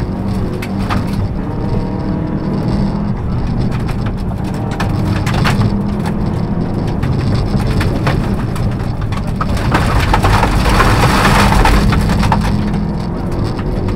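Subaru Impreza rally car's turbocharged flat-four engine running hard at speed, heard from inside the cabin, with gravel crunching under the tyres and stones clattering against the underside as sharp repeated clicks. The rush of noise swells louder about ten seconds in and eases back near the end.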